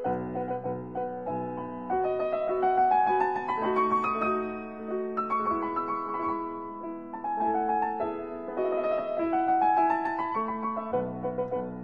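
Instrumental keyboard music with a piano sound, playing a melody of quick note runs that climb and then fall again several times.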